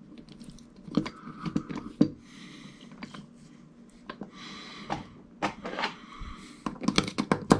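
Mini lathe apron and its gear parts handled on a workbench: scattered light clicks and knocks of metal and plastic parts, with a few short stretches of rustling. The sharpest knocks come about two seconds in and near the end.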